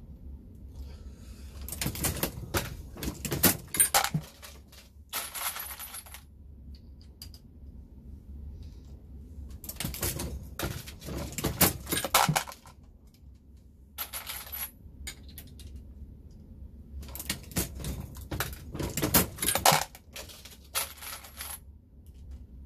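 Dillon Square Deal reloading press loading 9mm cartridges, cycled in three bursts of metallic clicking and clinking a few seconds apart, as finished rounds drop down the chute into the bin. Each burst is followed by a brief hiss.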